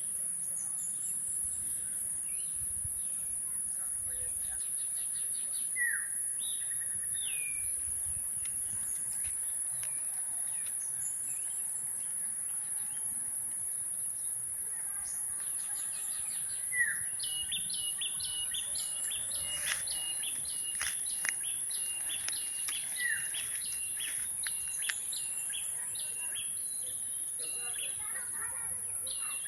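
Tropical rainforest chorus: a steady, high-pitched insect drone with several birds calling over it. A short falling whistle comes about three times, and a run of quick repeated notes fills the second half.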